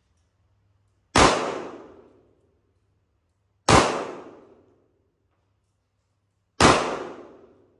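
Three single shots from a Sig Sauer 1911 Spartan .45 ACP pistol firing full metal jacket rounds, spaced about two and a half to three seconds apart. Each sharp crack echoes and fades over about a second.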